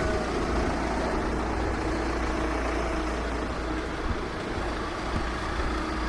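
Steady low rumble of a motor vehicle's engine running, heard over street ambience.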